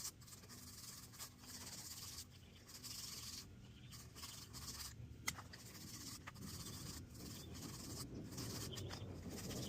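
Faint, intermittent scratching and rubbing from hands working at the pipe and fittings, with a single sharp click about five seconds in.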